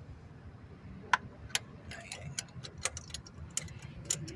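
Irregular light metallic clicks and taps, a few a second, from hand tools and parts being handled.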